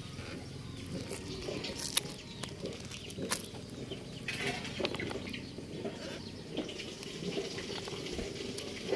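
Plastic toy dump truck loaded with gravel rolling over dirt and loose grit: an irregular crackling, crunching patter from its wheels and load, with a few sharp clicks of small stones, the loudest about two and three seconds in.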